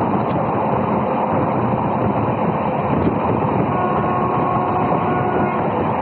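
Steady rumble and rattle of a moving passenger train, heard from beside the coach, its wheels running on the rails, with two sharp clicks a few seconds apart.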